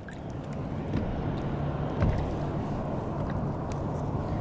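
Steady low rush of wind and water around an ocean fishing kayak, with a few faint ticks.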